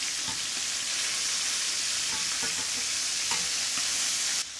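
Chicken thighs sizzling in hot olive oil in an enamelled cast-iron pan as they are turned over with tongs, with a few light clicks of the tongs against the pan. The sizzle drops suddenly to a quieter level just before the end.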